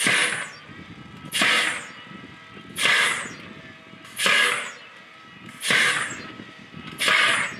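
LOCUST tube launcher firing small drones one after another: a sharp whoosh about every one and a half seconds, six in all, each dying away quickly.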